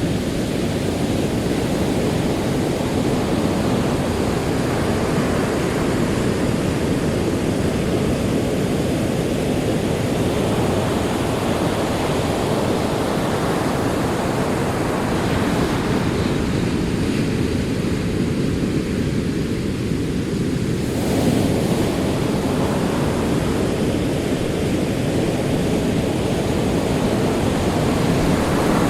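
Ocean waves rolling onto a shore: a continuous deep rumble of surf with swells of wash rising and falling every several seconds.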